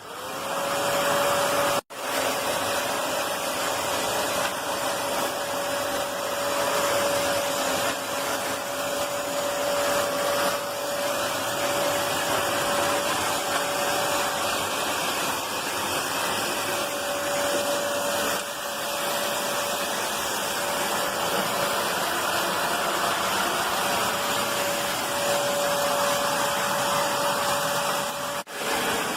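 Black+Decker BXVC30XTDE 1600 W wet/dry vacuum cleaner running: a loud, steady rush of air with a high motor whine held at one pitch. It drops out briefly about two seconds in and again near the end.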